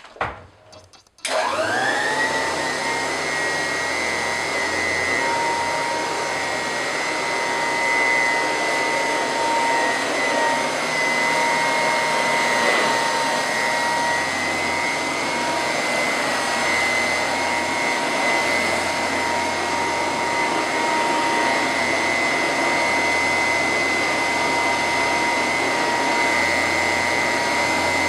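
Early-1940s Royal Model 131 upright vacuum cleaner: a short knock, then about a second in the motor starts, its whine rising quickly to speed. It then runs steadily with a high, even whine as it is pushed back and forth over an area rug.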